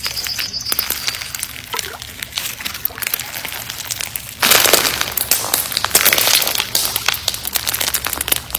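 Clear slime packed with small beads crackling and popping as it is stretched and pressed by hand, growing louder about halfway through.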